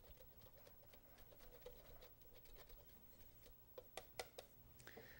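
Very faint rasping of a hand grater shaving hard cheese, with a few light clicks about four seconds in.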